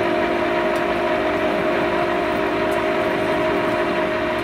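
LeBlond engine lathe running at steady speed with its chuck spinning: a continuous mechanical hum with several steady whining tones.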